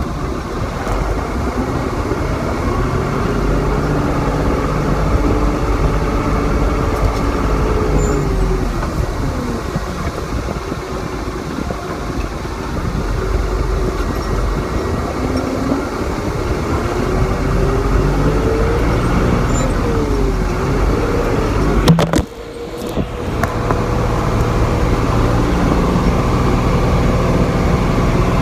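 Farm vehicle's engine running while driving, heard from inside the cab, its pitch rising and falling twice as the revs change. About three-quarters of the way through there is a sharp click and the sound dips for about a second.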